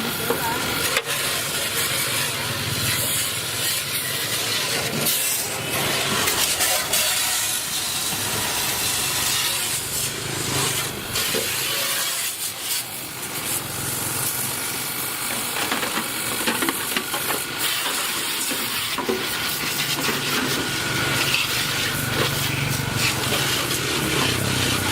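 Steady hissing spray with a motor running underneath it, swelling and easing as the work goes on.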